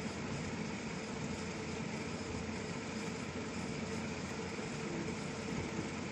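Steady whir and hum of an electric fan running, with one constant tone under an even rush of air.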